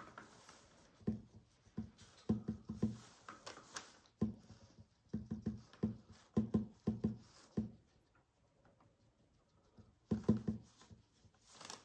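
Paintbrush dabbing thick paint onto a canvas: quick runs of soft taps, a pause, then a few more taps near the end.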